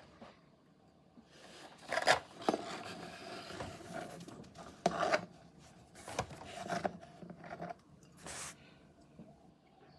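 Packaging being handled and opened by hand: irregular scraping and rubbing with several sharp clicks and snaps, loudest about two seconds in and again around five and six seconds.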